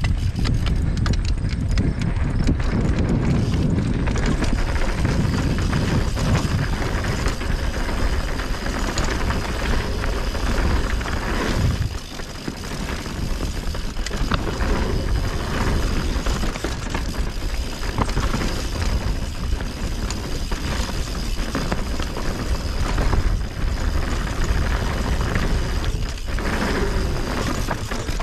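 Mountain bike riding fast down a dusty dirt singletrack: a steady low rumble of wind and tyre noise with constant clattering rattles from the bike over rocks and roots, easing briefly about twelve seconds in.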